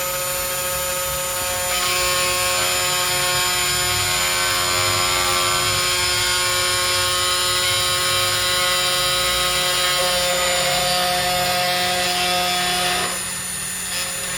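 CNC3018 desktop CNC router running: a motor whine with several steady tones, some shifting in pitch, over a hiss. It gets louder about two seconds in and drops back sharply about thirteen seconds in.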